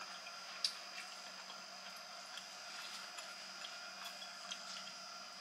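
Quiet room tone: a steady faint hiss with a thin high whine and a low hum, broken by a few faint, irregular clicks.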